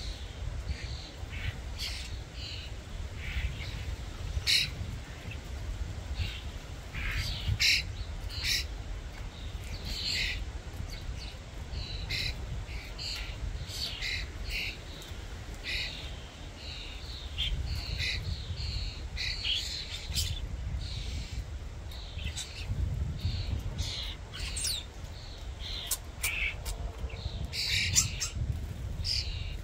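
Common starlings calling: a busy, continuous run of short chattering calls, with a few sharp clicks, over a steady low rumble.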